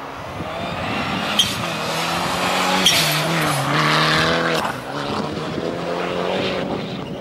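Rally car engine running hard as the car approaches and passes close by on a snowy stage. The engine note dips about three seconds in, then climbs again as the car pulls away. Two sharp clicks are heard partway through.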